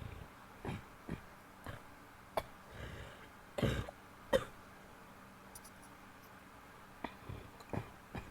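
A woman coughing in short bouts: a run of about seven coughs, a pause of about two and a half seconds, then four more coughs near the end.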